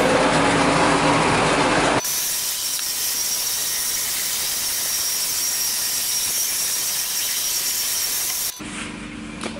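Background music for the first couple of seconds, then a counter-rotating brush (CRB) carpet-scrubbing machine running: a steady hiss with a thin high whine that cuts off near the end.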